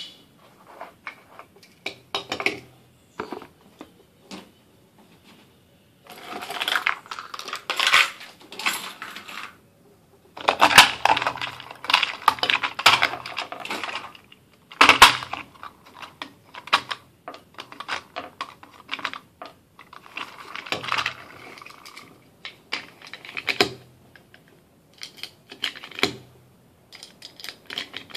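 Handling of an H&K HK4 pistol and its parts: scattered sharp clicks and knocks of metal and plastic, the loudest at the very start and about fifteen seconds in. Between them come stretches of paper rustling, from about six to nine seconds in, from about ten to fourteen seconds in, and again briefly around twenty seconds in.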